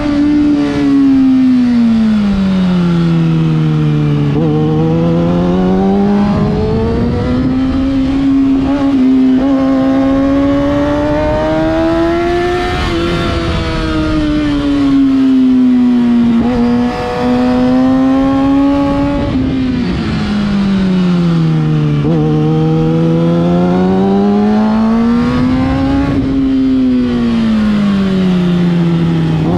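2013 Kawasaki Ninja ZX-6R 636's inline-four engine at full track pace: its note climbs as the bike drives out of corners and sweeps down as it slows into them, several times over, with a steady rush of wind over the bike.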